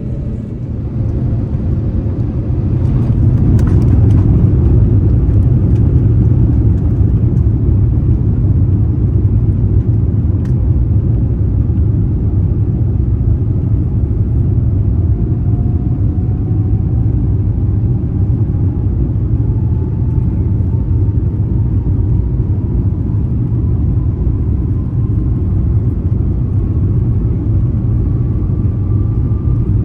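Airbus A350-900 cabin during the takeoff roll: the Rolls-Royce Trent XWB engines come up to takeoff thrust over the first few seconds, giving a loud, steady low rumble. From about halfway through, a faint tone rises slowly in pitch as the aircraft gathers speed.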